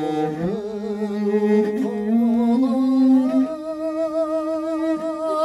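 Mongolian long song (urtiin duu): a man's voice holding long notes with a quick wavering vibrato, stepping upward in pitch, accompanied by a bowed morin khuur (horsehead fiddle).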